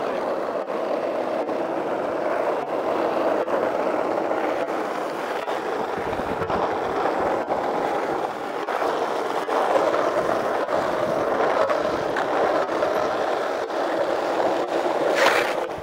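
Skateboard wheels rolling steadily over rough asphalt road, with one sharp clack near the end.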